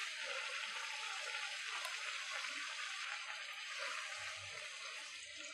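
Moong dal poori deep-frying in hot oil, the oil sizzling steadily around the puffed poori.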